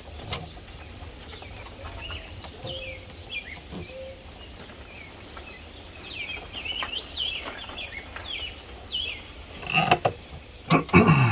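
Small birds chirping over and over, short quick calls, with scattered clicks and a low steady wind rumble. Near the end come a few louder knocks and handling noises.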